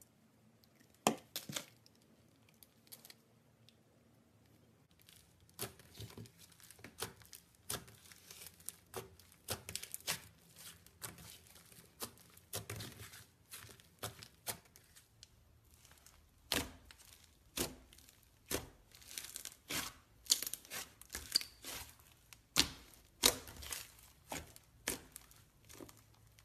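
Hands kneading, squishing and stretching fluffy pink slime: a run of sticky pops and crackles. They are sparse for the first few seconds, then come thick and fast.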